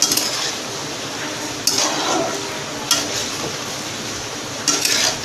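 Metal spatula stirring chickpeas in thick masala in a kadhai, with a few sharp scrapes and clinks against the pan over a steady frying sizzle.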